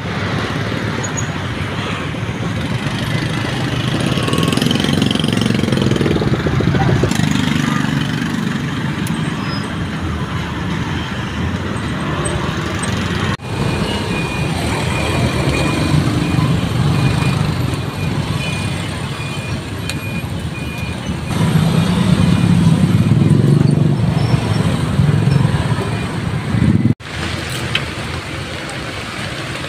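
Street traffic: motor vehicles passing on a busy road, a steady engine rumble that swells and fades, with indistinct voices. The sound breaks off abruptly twice.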